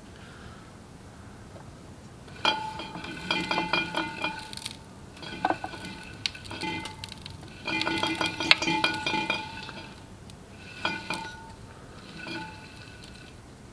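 Kohler K301 cast-iron single-cylinder engine turned over by hand with its crankcase open: scraping, ringing metal and clinks in about five bursts of a second or two each. The crankshaft drags through loose metal and broken pieces from a snapped connecting rod.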